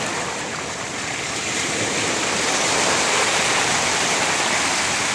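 Sea surf washing and foaming in the shallows: a steady rush of broken waves that swells a little about two seconds in.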